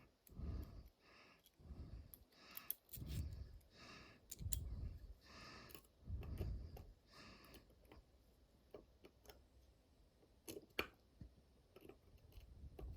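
Faint handling noises and light, irregular clicks of small metal parts as the discs and spacers are taken out of an Abloy Classic disc detainer cam lock, with a sharper click near the end.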